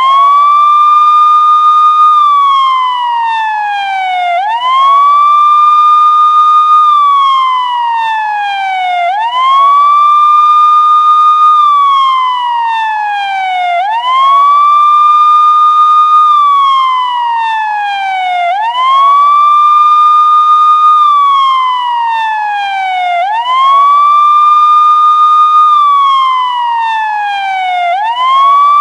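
Electronic police siren sounding a slow wail. Each cycle sweeps up quickly, holds its high note for about two seconds, then slides slowly back down, repeating about every four and a half seconds.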